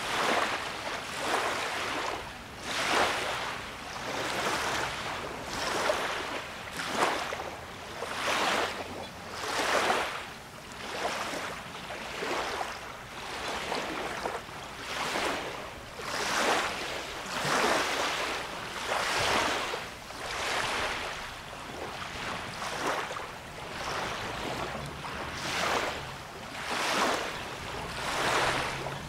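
Small lake waves lapping at the shore, a wash of water rising and falling about once a second.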